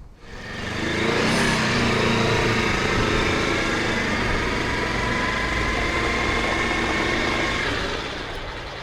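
A motor vehicle's engine running close by. It builds up over the first second, holds steady with a few held tones, then dies away near the end.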